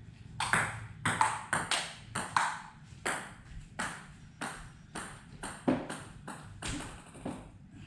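A table tennis rally: the ball clicking sharply off the bats and the table top, a few hits a second at an uneven pace, thinning out near the end.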